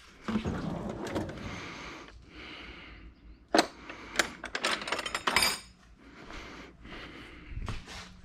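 A steel tool chest drawer sliding open, then ratchets, extensions and sockets clinking together in the drawer's tray as a hand rummages through them, in a run of sharp metal clinks about halfway through.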